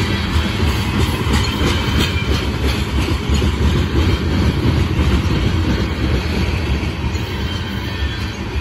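Coal train gondola cars rolling past: a steady low rumble of steel wheels on rail, with sharp clicks of wheels over rail joints in the first few seconds.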